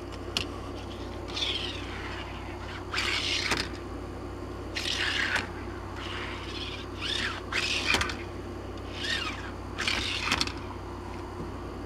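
A bird giving short, harsh calls, about six in all, one every second and a half to two seconds, over a faint steady hum.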